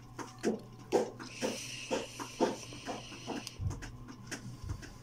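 A person exhaling a hit of vape vapor: a long breathy hiss from about a second in until past three seconds, over a string of short soft clicks, with a couple of low thumps near the end.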